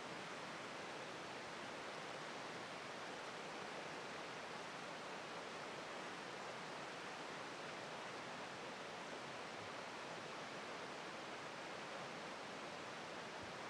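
Steady rushing hiss of Taughannock Falls, a tall plunge waterfall.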